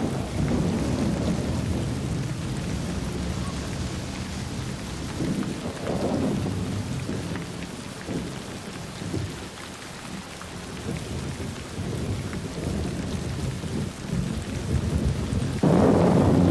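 Heavy rain falling steadily with rolling thunder rumbling under it, the rumble easing in the middle and a louder one starting abruptly near the end.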